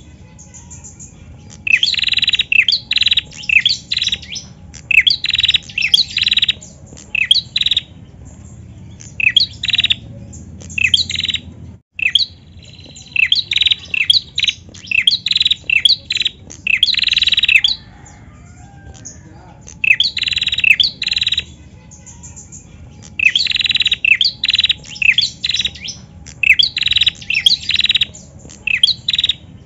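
Female prenjak singing: clusters of rapid, sharp, high chirps in repeated phrases about a second long, with short pauses between them and one brief dropout about twelve seconds in. This is the female call that keepers play to set other prenjak singing.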